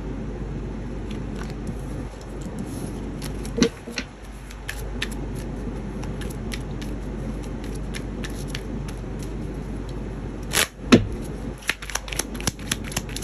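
Tarot cards being handled and laid on a table: scattered clicks and taps, a louder one about four seconds in and a busier cluster near the end, over a steady low background hum.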